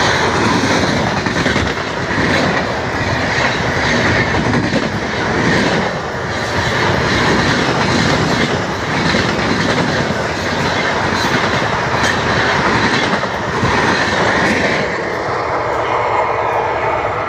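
Passenger train coaches rushing past close by, the wheels clattering rhythmically over the rail joints. About fifteen seconds in, the last coach passes and the sound drops and fades as the train moves away.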